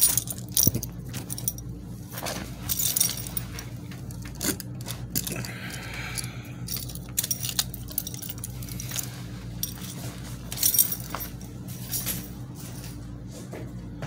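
Small metal objects jingling and clinking in a few short spells, over a steady low hum.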